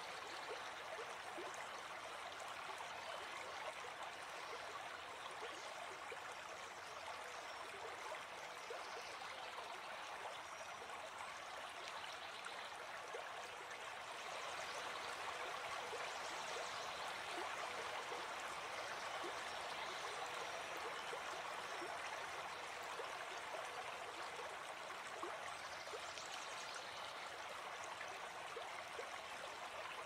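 River water flowing steadily, an even rushing with scattered tiny splashes, a little louder through the middle stretch.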